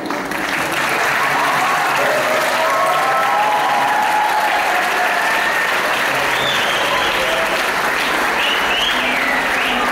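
Audience applauding steadily in a hall, the clapping building up in the first second.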